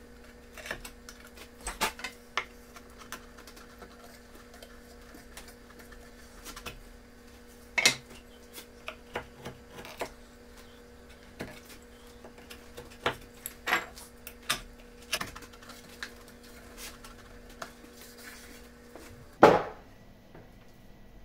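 Hand-tool work on pine dovetail joints: a chisel paring at the joint, with irregular clicks and knocks of tools and wood on the workbench. One sharp knock comes about eight seconds in, and the loudest comes near the end.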